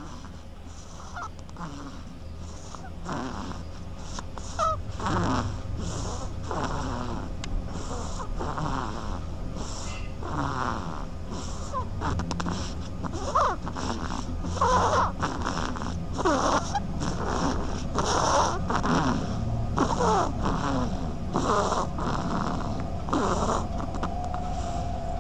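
Duckling snoring in its sleep: short, quick snores about once a second, some with a thin squeaky note gliding up or down, over a steady low hum.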